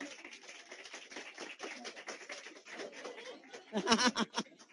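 Scattered applause from a small audience as someone is introduced, a quick run of many light claps, with a short laugh about four seconds in.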